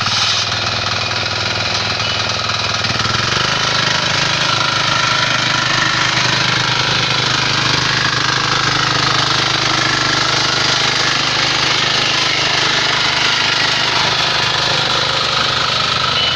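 Diesel engine of a walk-behind power tiller running steadily under load, with a fast, even chugging. Its rotary tines are churning dry, stony soil. The sound builds slightly over the first few seconds, then holds steady.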